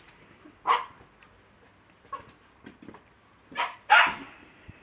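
Lakeland terrier barking close to the microphone: a few short, separate barks with gaps between them, the loudest two close together near the end.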